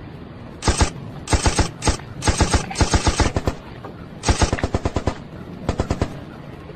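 Cat chattering in several bursts of rapid clicking with short pauses between them: the excited chatter a cat makes while watching prey through a window.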